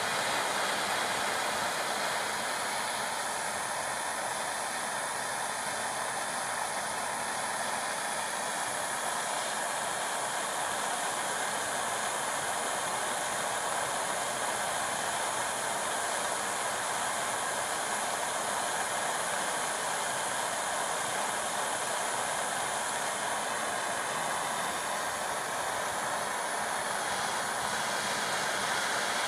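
Torch flame burning with a steady hiss, heating powdered enamel on copper from below to fuse it.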